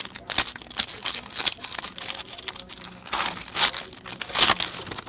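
Foil hockey card pack wrapper crinkling and rustling as it is handled, along with cards sliding against each other, in irregular bursts that are loudest a little after three seconds in and again at about four and a half.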